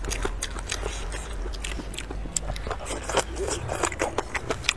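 Close-up chewing and biting of boneless chicken feet in chili-oil sauce: a steady run of many short mouth clicks.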